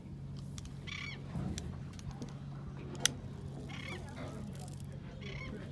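Gulls calling, three short calls about a second in, near four seconds and near the end, over the steady low hum of the boat's engine; a single sharp click about three seconds in.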